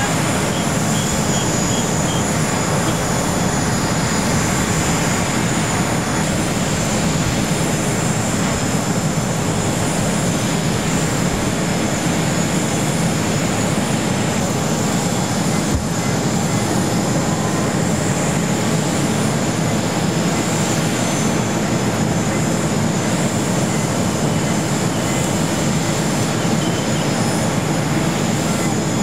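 A parked Airbus A380 airliner with its onboard systems running: a steady high whine over a low rumble, unchanging.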